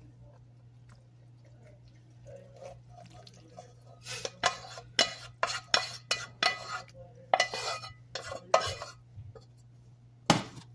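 A spoon scraping and knocking against a pot as cooked elbow noodles are scooped out: a run of quick scrapes and clatters starting about four seconds in, then one sharp knock near the end.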